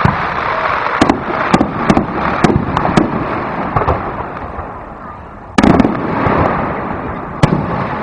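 Aerial fireworks show: a quick run of sharp bangs from shells bursting in the first few seconds, then a louder boom about five and a half seconds in that trails off into rumbling crackle, and one more sharp bang near the end.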